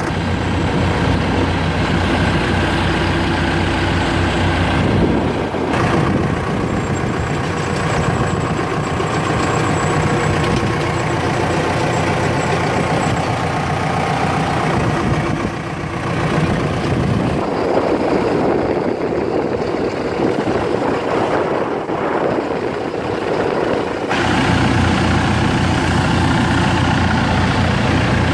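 John Deere 120C excavator's four-cylinder turbo diesel engine running steadily at idle. Its low hum thins out for a few seconds in the second half, then comes back fuller.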